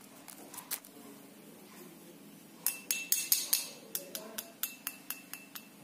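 A plastic spoon clinks against a pressed-glass bowl. There are a few light knocks about half a second in, then a quick run of a dozen or so clinks from the middle to near the end, and the glass rings briefly with each one.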